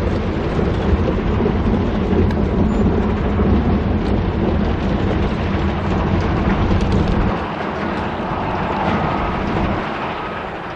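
Wind buffeting the camera's microphone: a loud, rough low rumble that eases off about seven seconds in.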